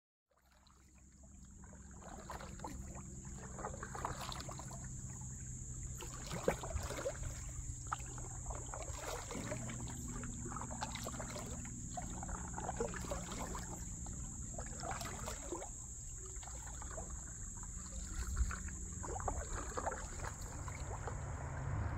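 Canoe paddles dipping and water trickling off them in irregular splashes, fading in over the first couple of seconds. A steady high-pitched whine and a low hum run underneath.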